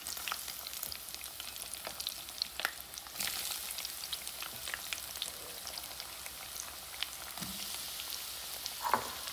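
Hot oil in a frying pan sizzling and crackling as floured potato wedges are dropped in to deep-fry alongside a piece of battered fish. The sizzle grows louder about three seconds in, as more wedges go into the oil.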